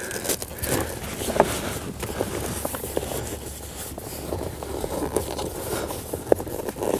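Handling noise from a plastic-framed baby mirror and its Velcro strap being fastened and adjusted on a car's rear headrest: rustling and scraping with a few light clicks.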